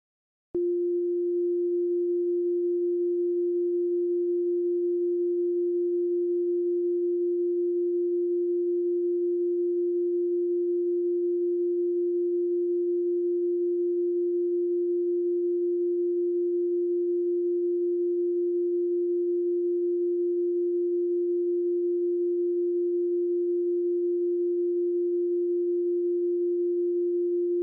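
A steady, low-pitched electronic sine tone from the broadcast, one unchanging pitch. It starts abruptly about half a second in and holds without a break.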